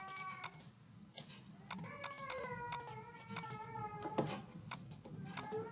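Computer mouse clicking now and then, several sharp single clicks, while wires are placed in a circuit schematic. Over them is a drawn-out pitched sound with a slightly wavering, falling tone: it ends about half a second in, sounds again for about two seconds in the middle, and starts again near the end.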